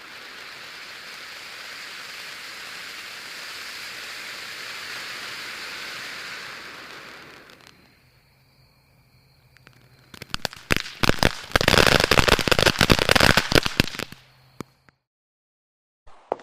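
A steady hiss fades out about seven seconds in. After a short lull, a string of firecrackers goes off in rapid, dense cracks and pops for about five seconds, then stops abruptly.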